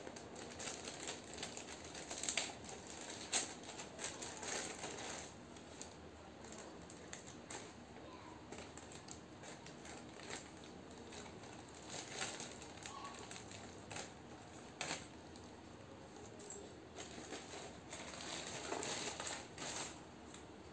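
Faint crinkling and rustling of a plastic courier mailer bag being cut with scissors and pulled open by hand, with scattered sharp snips and clicks. Near the end a small cardboard box is handled.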